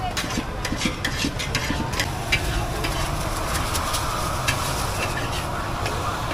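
Metal spatulas and tongs clinking and scraping against a large steel wok, with a steady sizzle setting in from about three seconds in as shredded vegetables go into the hot wok.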